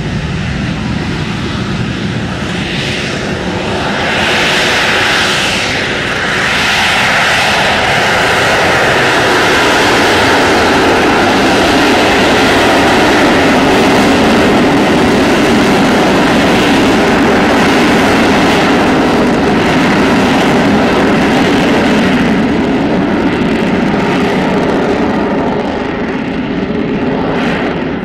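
Harrier jump jet's Rolls-Royce Pegasus turbofan at high power, a loud jet roar with a steady whine, rising about four seconds in and again from about six to ten seconds, then holding, easing slightly near the end.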